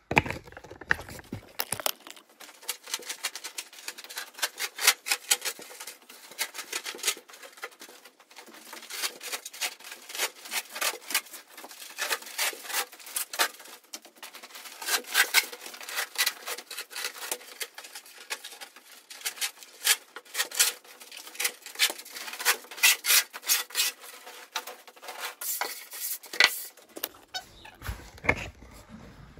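Peel ply being pulled off the cured epoxy carbon-fibre laminate of a surfboard: a long run of dense, irregular crackling and ticking as the fabric tears free of the resin, starting about two seconds in and stopping shortly before the end.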